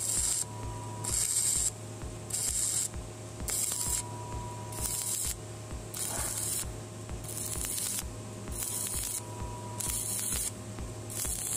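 Electric welding arc on thin steel square tube, hissing in regular pulses a little under once a second.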